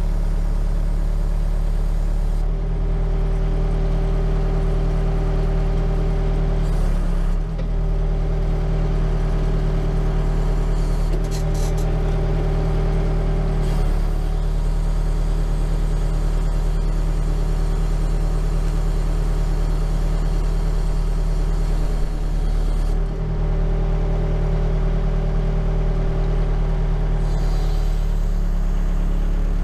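Diesel engine of a backhoe running steadily at idle. A higher whine comes in and drops out several times.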